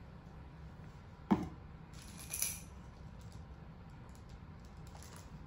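Baby play gym being handled: a sharp knock about a second in, then a brief high jingling rattle, and a few faint clicks after.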